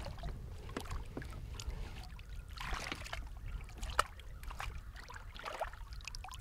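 Small splashes and drips of water as hands work in a landing net sitting in the lake beside the boat, with a sharper splash about four seconds in, over a low steady rumble.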